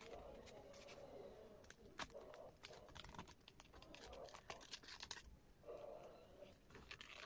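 Faint rustling and crinkling of food wrapping, with scattered small clicks and ticks, as fried chicken is pulled apart by hand.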